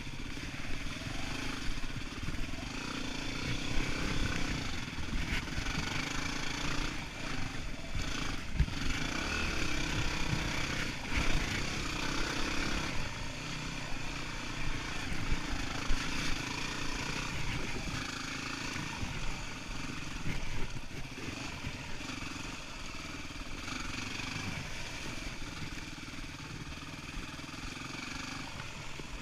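Yamaha WR250R's 250 cc single-cylinder engine running as the bike is ridden along a rough dirt trail, its pitch rising and falling with the throttle. Sharp knocks and clatter come now and then as the bike goes over roots and rocks.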